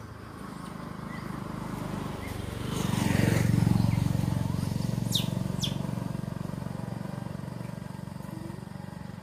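A motor vehicle passing on the road, its engine hum building to a peak about three to four seconds in, then slowly fading away.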